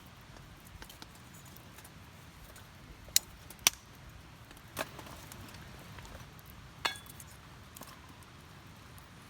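A few sharp clinks and taps of small hard objects being handled, like metal or glass gear knocking together. The two loudest come about three seconds in, half a second apart, and softer ones follow.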